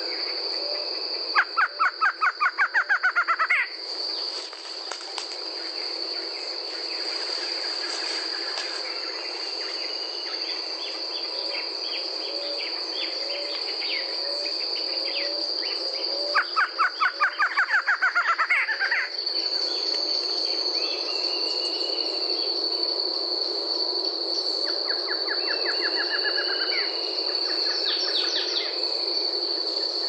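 Barred antshrike singing three times: each song is a fast run of repeated notes, about two seconds long, that climbs in pitch, and the third is fainter. A steady high insect drone runs underneath.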